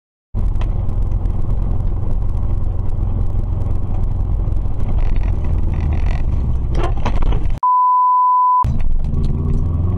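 Steady low rumble of a car's engine and tyres heard from inside the car through a dashcam microphone. About three-quarters of the way through, the car sound cuts out completely for one second and a single steady high beep sounds alone: an edited-in censor bleep. Then the rumble comes back.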